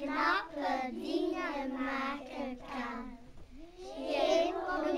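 A young boy singing a little song solo, in phrases with short breaks between, with a brief pause about three and a half seconds in.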